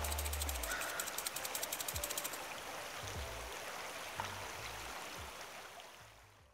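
Outro music: a fast ticking beat over low bass notes. The ticking stops about two seconds in, the bass notes carry on, and everything fades out near the end, over a steady rush of flowing river water.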